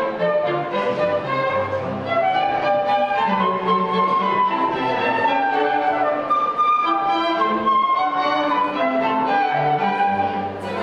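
Instrumental music with strings and a flute-like melody line, in a classical style.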